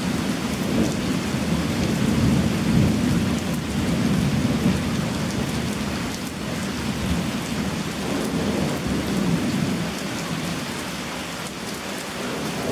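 Thunderstorm: heavy rain falling steadily with thunder rumbling through it. The rumble is strongest in the first few seconds and eases off about halfway through.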